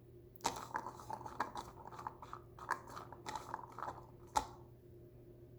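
Seasoned chickpeas being stirred and tossed in a bowl: a quick, irregular run of clicks and crunchy rattles, with one sharper knock about four and a half seconds in before it stops.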